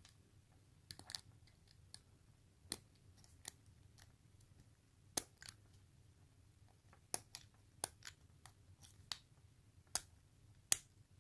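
Lock pick working the pins of a five-pin CASP euro-cylinder door lock under tension: irregular sharp metallic clicks and ticks as pins are lifted and set, the loudest near the end.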